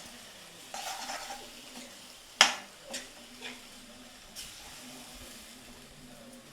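Broccoli pieces and masala powders being stirred in a frying pan, with a light sizzle and a utensil scraping and knocking against the pan. The loudest sound is one sharp clank about two and a half seconds in, with a few softer knocks after it.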